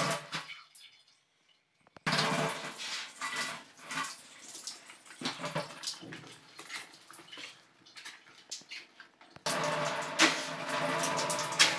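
Water running and splashing in an RO water purifier as its plastic push-fit tubing is handled, with short clicks and knocks. It is nearly silent at first, starts abruptly about 2 seconds in, and turns louder and steadier about 9.5 seconds in.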